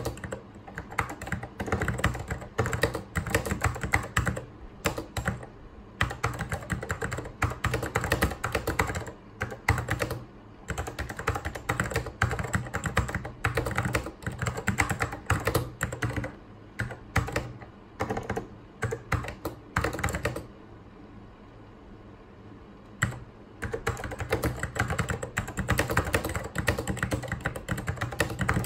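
Fast, continuous typing on a vintage mechanical Apple keyboard: a rapid, uneven stream of key strikes. It stops for about two seconds roughly two-thirds of the way in, then resumes.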